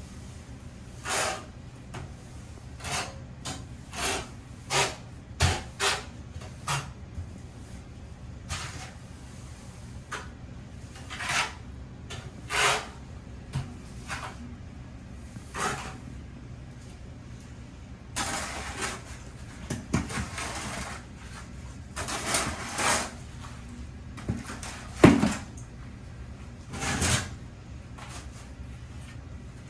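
Irregular knocks, clacks and scrapes of ceramic floor tiles and plastic spacers being handled and set down during tile laying, with longer scraping stretches past the middle and one sharp loud knock a few seconds before the end.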